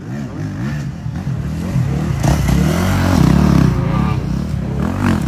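Enduro motorcycle engine revving up and down as the bike comes down a dirt track and passes, loudest about three seconds in, then easing as it heads away.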